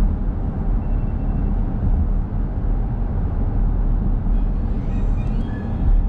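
A car driving: a steady low rumble of road and engine noise, with no change as it nears the crossroads.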